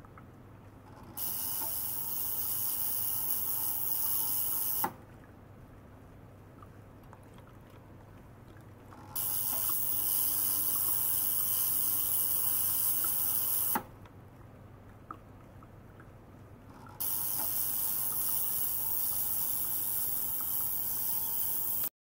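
Ultrasonic cleaner bath running in bursts: a loud, bright hiss of cavitating water with faint steady tones under it, switching on about a second in, again about nine seconds in, and once more near seventeen seconds. The first two bursts stop sharply with a click. Between bursts, only a faint low hum from the small pump circulating water through the jar.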